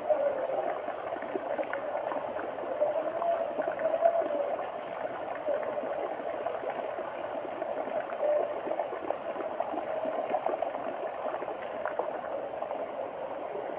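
Floodwater flowing and gurgling steadily, with small splashy ticks throughout.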